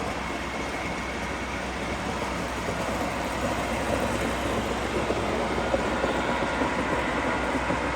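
A steady mechanical hum with a constant low drone under an even wash of noise, holding level throughout.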